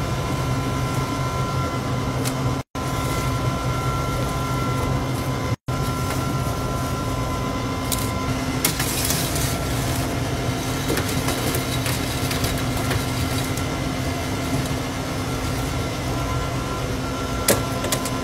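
Steady drone and hum of commercial kitchen equipment at a fast-food fryer and holding station, broken by two brief gaps in the first six seconds. About halfway through comes a short rustle and scrape of fries being scooped with a metal fry scoop, and a sharp clink sounds near the end.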